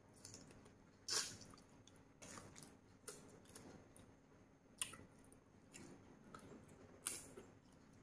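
Faint close-up eating sounds: soft chewing and wet sucking as pieces of seafood papaya salad are eaten by hand, with three sharp mouth clicks, about one, five and seven seconds in.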